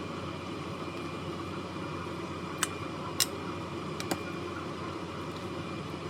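Steady whirring hum, like a fan or extractor, with four light, sharp clicks a little past halfway through.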